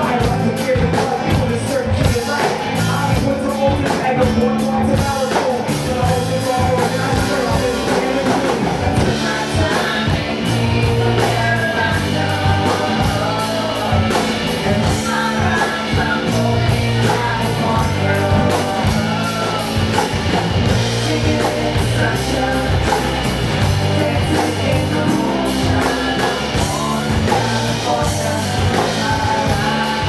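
Live rock band playing a song, with a drum kit keeping a steady beat under a singer's vocals.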